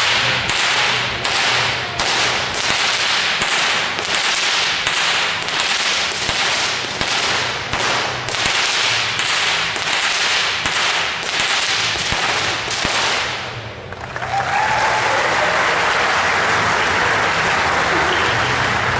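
Two whips cracked in alternation in a fast, even rhythm, about two sharp cracks a second, for some thirteen seconds. The cracking then stops and is followed by steady applause.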